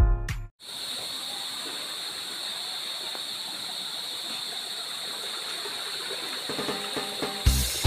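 Spring water running steadily along a narrow stone channel, an even rushing sound. Music with a beat cuts in near the end.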